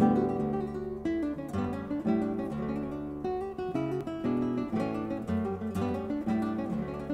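Background music: an acoustic guitar piece of plucked notes and chords.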